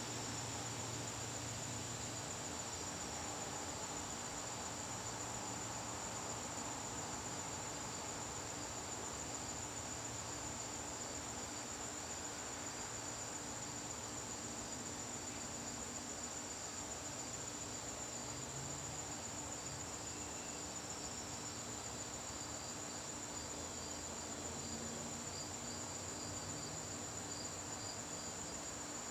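Garden crickets chirping: a steady, unbroken high-pitched trill, with a second, lower-pitched cricket chirping in quick regular pulses beneath it.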